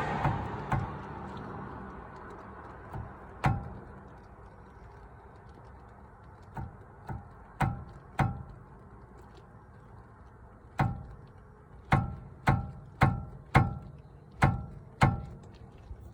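Brake caliper giving sharp metallic clicks or knocks, a dozen or so at uneven intervals, some in quick runs, each with a brief ring: the abnormal noise suspected to come from the caliper. A hiss fades out over the first couple of seconds.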